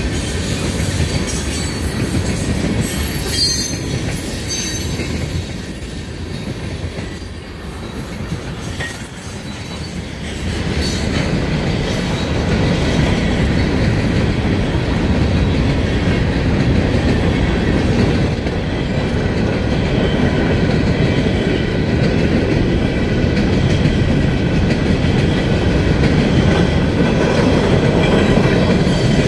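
Freight train cars, tank cars and then loaded hopper cars, rolling past a grade crossing, their wheels clattering over the rail joints. The rolling noise drops for a few seconds around the middle and builds again from about ten seconds in.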